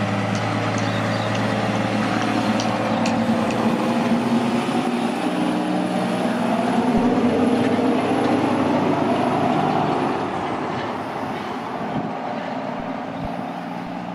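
Heavy truck engine pulling through, its pitch rising as it gets louder, with a thin high whine over the loudest part. The sound drops away after about ten seconds.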